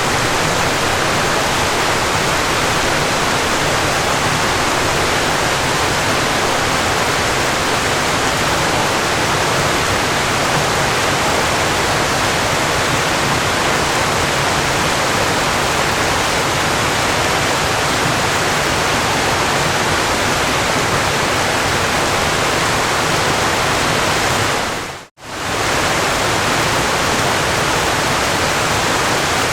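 Steady rush of falling water, a waterfall, even and unbroken. About 25 seconds in it dips to near silence for a split second, then comes back.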